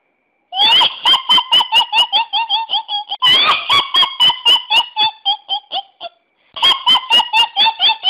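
Kuntilanak ghost-laugh ringtone: a shrill, high-pitched cackle of quick "hi-hi-hi" notes, about five a second. It comes in three runs, with short breaks a little after three seconds and about six seconds in.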